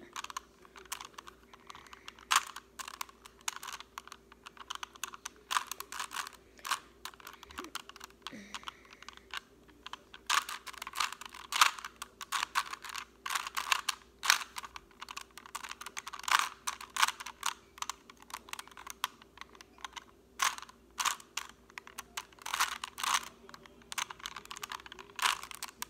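A plastic Rubik's cube being twisted by hand: irregular clicks and clacks of its layers turning, often in quick runs of several turns.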